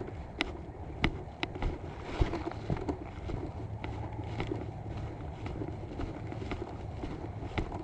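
Footsteps on a dirt trail, irregular sharp steps about one to two a second, over steady wind rumble on the microphone.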